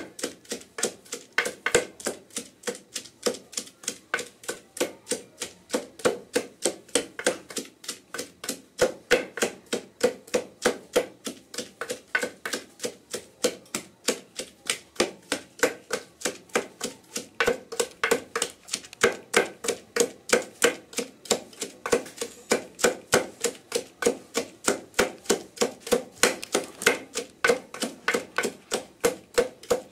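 Wooden pestle pounding chopped green vegetables in a heavy mortar: a steady, fast rhythm of dull knocks, several a second, that keeps going without a break.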